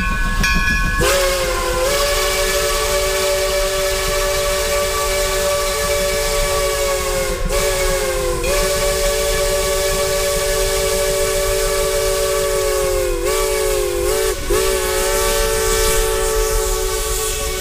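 Steam locomotive's multi-note chime whistle blowing, starting about a second in: long blasts with short ones between, the pitch dipping at each break. Underneath is the low rumble of the train passing close by.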